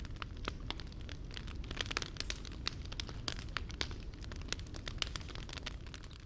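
Wood fire crackling in a campfire pit: irregular sharp pops and snaps over a steady low rumble.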